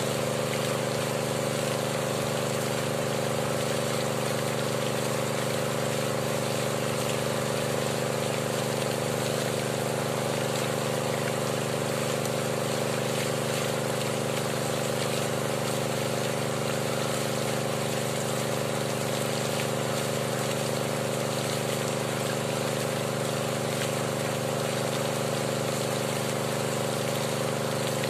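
Small engine-driven water pump running steadily at one speed, pushing water through the hose into a hand-turned bore-well drill pipe to flush the cuttings out.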